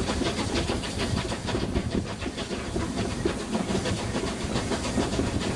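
Steam-hauled train on the move, heard from a carriage window: the steam locomotive's rapid, regular exhaust beats over the steady rumble and clatter of the carriage wheels on the rails.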